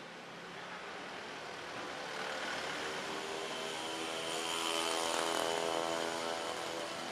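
A motor vehicle's engine passing by, growing louder to a peak about five seconds in and then fading, over a steady hiss of background noise.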